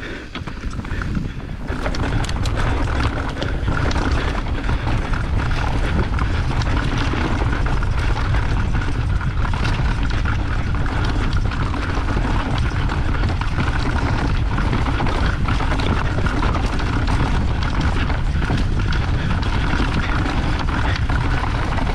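Mountain bike riding fast down a singletrack trail, heard on a GoPro: a steady rush of wind on the microphone and tyre noise, with frequent small clatters from the bike over roots and stones. It gets louder about two seconds in as the bike picks up speed.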